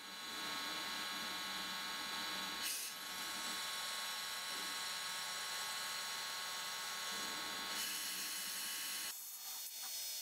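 Small CNC spindle motor running with a steady high whine while a spring-loaded bit scrapes solder mask off a copper PCB. The sound fades in at the start, and about nine seconds in its low part drops out abruptly and it continues thinner.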